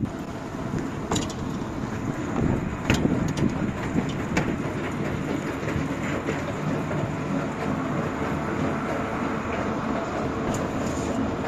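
A moving escalator running with a steady mechanical rumble and hum, with a few sharp clicks in the first few seconds.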